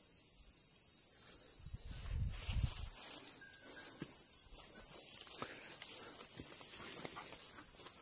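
Steady high-pitched chirring of an insect chorus, unbroken throughout, with a few faint footsteps on the grassy path.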